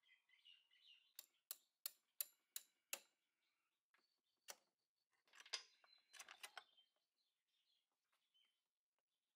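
Six sharp metallic clicks, about three a second, from the hand tools on a Honda Elite 50 scooter's front axle nut. Then, after a single click, a short clatter and metal scrape as the front wheel axle is drawn out through the drum brake hub.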